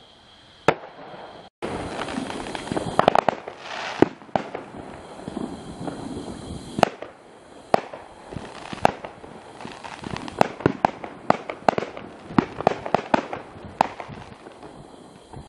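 Fireworks going off: a string of sharp bangs and crackling pops from aerial bursts, with quick clusters of reports about three seconds in and again from about ten seconds on.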